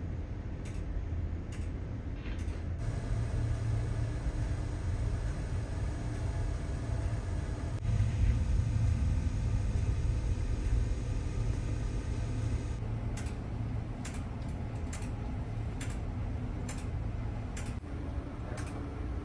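Steady low rumble of a large ferry's engines and hull vibration under way. A sharp tick about once a second sounds over it for the first few seconds and again from about two-thirds of the way through.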